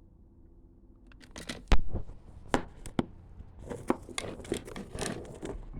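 Handling noises: a few sharp clicks, the loudest about two seconds in, followed by a stretch of crinkling and rustling.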